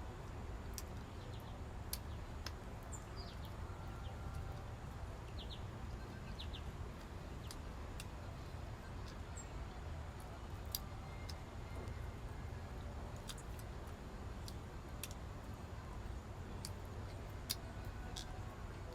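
Faint, brief bird chirps over a steady low background rumble, with scattered sharp clicks.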